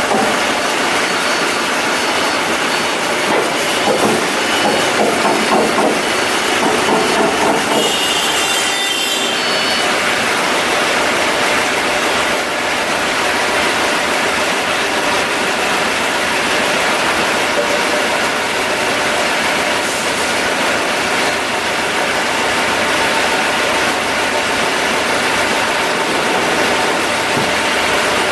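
Loud, steady running-machinery noise, with a brief high squeal at about 8 to 9 seconds.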